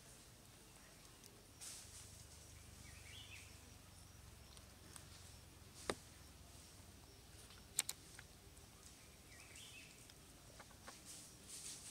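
Near-silent outdoor background hiss with two faint, short high chirps and a few sharp clicks.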